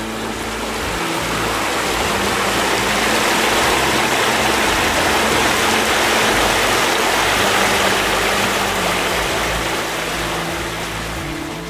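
Fast-running shallow mountain beck rushing over rocks and boulders, a steady rush of water that swells toward the middle and eases slightly near the end.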